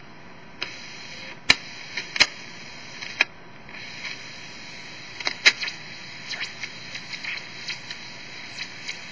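Hiss from a TenTec Model 1054 regenerative shortwave receiver's speaker as it is tuned across an empty band, with sharp clicks and crackles scattered through it. A few louder ones fall in the first half and the hiss grows a little after about four seconds.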